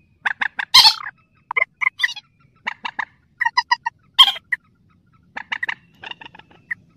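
Mandar sawah (a rail) calling: short clipped notes repeated in quick groups of three or four, with two louder, harsher notes about a second in and about four seconds in.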